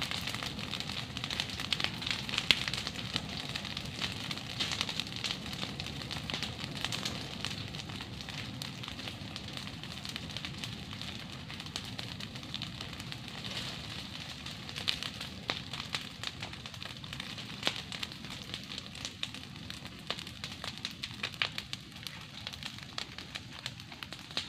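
Open fire of dry twigs and fronds crackling steadily as it burns around a wild boar carcass to singe it, with frequent sharp pops.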